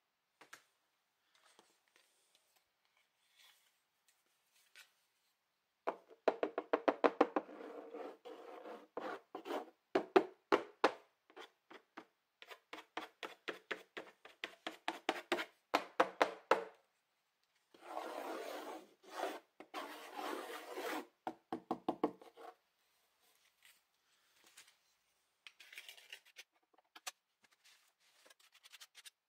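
A hand tool scraping and scoring through thick acrylic paint on a wooden panel: quick, repeated strokes in two long runs with a short pause between them. The strokes start about six seconds in and end well before the finish, after which only a few faint scratches follow.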